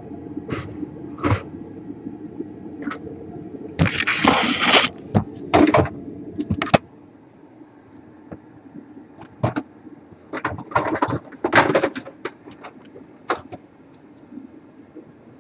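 Small clicks, taps and scrapes of tools and parts being handled on a repair bench, with a louder rustling burst about four seconds in and another cluster of scrapes near the end. A low steady hum stops about seven seconds in.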